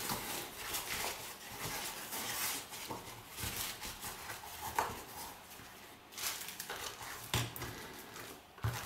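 Hands handling a foam box insert and a clear plastic sheet: soft rustling and scraping with a few light knocks scattered through.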